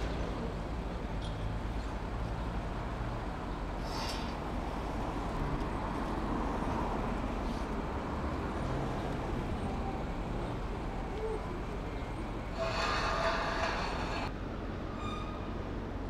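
Street noise with a steady low hum of running vehicle engines. About 13 seconds in comes a louder, harsh screeching hiss lasting under two seconds.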